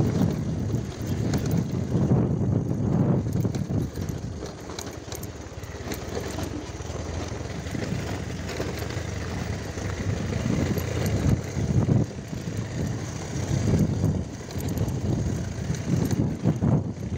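Motorbike ridden along a rough dirt track: engine running under an uneven low rumble that rises and falls.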